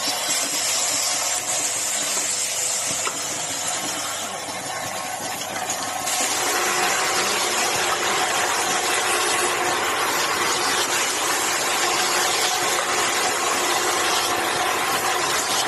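Automatic aerosol-cap assembly machine running: a steady mechanical hum and hiss from its cap feeder and pneumatic assembly station, growing a little louder about six seconds in.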